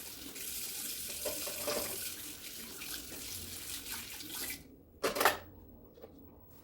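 Water running steadily from a tap, shut off abruptly about four and a half seconds in, followed by a single short knock.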